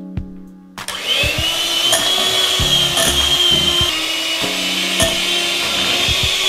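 Electric hand mixer running with its beaters in a glass bowl of butter: a steady motor whine over the rough sound of the beaters churning the mix.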